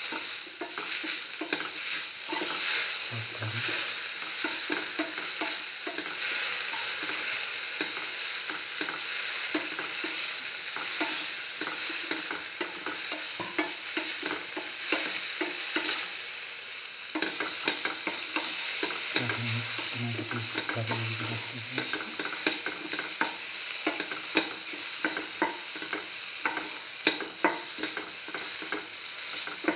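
Shallots, garlic, ginger and fresh tomato pieces sizzling in hot oil in a pan, stirred with a spatula that scrapes and taps against the pan many times.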